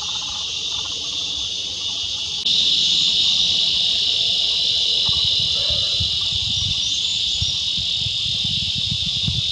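Cicada calling: a steady, high-pitched buzzing drone that gets louder about two and a half seconds in.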